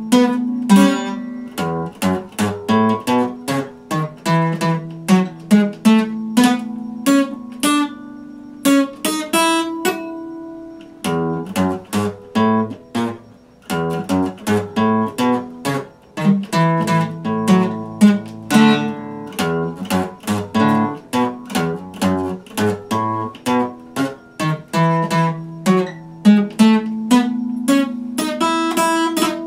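Epiphone acoustic guitar playing a chord progression with quick, even strokes. About ten seconds in, one chord is left ringing before the playing picks up again.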